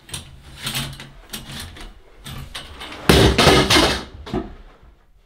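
Knocks and clatter of things being handled at a bathtub, a plastic colander among them, with a louder rattle lasting about a second a little past the middle.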